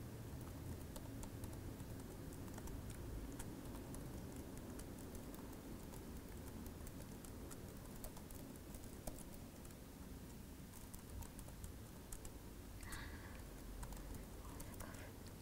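Fast typing on a computer keyboard: a faint, continuous stream of quick key clicks.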